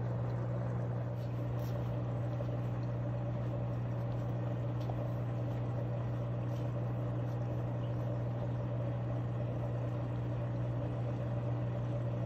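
Steady low electrical hum of aquarium equipment, even and unchanging throughout.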